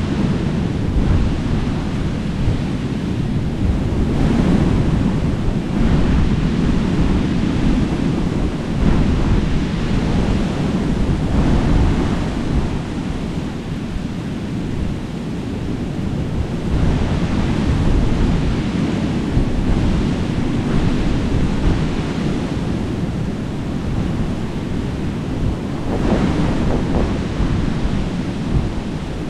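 Ocean surf breaking on a sand beach, mixed with wind buffeting the microphone: a steady rushing noise, heaviest in the low end, swelling and easing as the waves come in.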